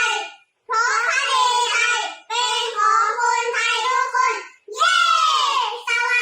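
A child's voice singing a song in high-pitched phrases of one to two seconds, with held notes and short breaks between the phrases.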